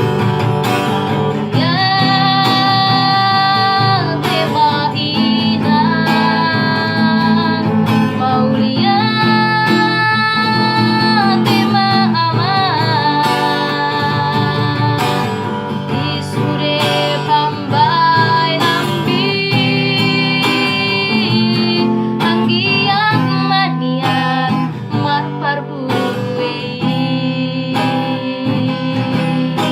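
A woman singing a Batak song in a high voice over strummed acoustic guitar, holding long wavering notes.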